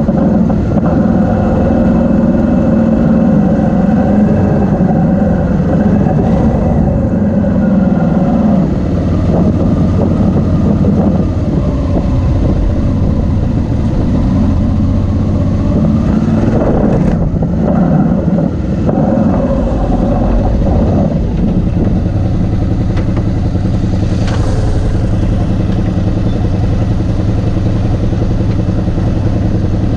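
Motorcycle engines running on a dirt track: a steady engine drone whose pitch shifts with the throttle about a third of the way in and rises and falls again just past halfway, then settles to a steadier, lower run as another motorcycle rides up close.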